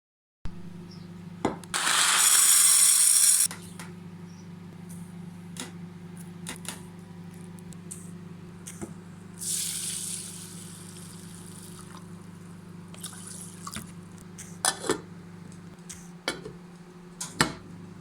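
Kitchen work sounds: a steady low hum, a loud gush of running tap water about two seconds in, a softer hiss near the middle, and scattered clicks and knocks of utensils and dishes.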